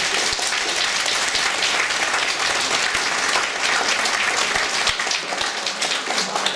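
Audience applauding, the clapping thinning slightly near the end.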